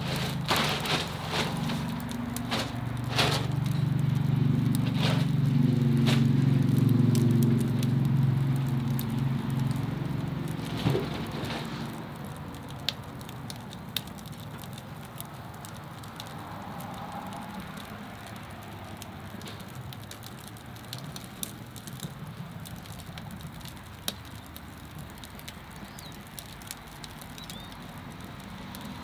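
Wood fire crackling in an offset smoker's firebox, with sharp pops scattered throughout. A louder low hum swells over the first several seconds and fades out about twelve seconds in.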